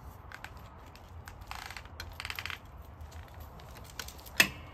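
A lug wrench being worked on a car's wheel nuts to loosen them. There are two short bursts of rapid clicking, then one sharp metal clank near the end, which is the loudest sound.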